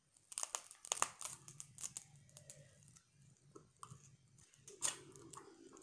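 Boiled blue crab shell being cracked and pulled apart by hand: a quick run of sharp crackles and snaps in the first two seconds, then another loud snap near the end.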